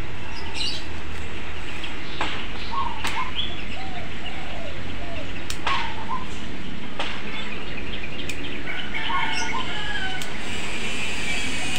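Birds calling over and over in short arched chirps over a steady background hiss, with a few sharp clicks from pruning scissors snipping the ficus bonsai's leaves.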